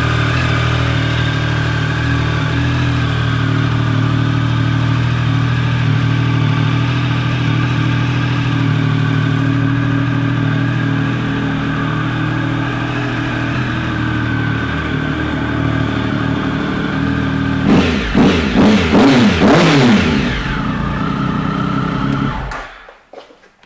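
2011 Triumph Speed Triple 1050's inline three-cylinder engine, fitted with an aftermarket Danmoto exhaust, idling steadily. About 18 seconds in it is revved several times in quick succession, then drops back to idle and is switched off, cutting out near the end.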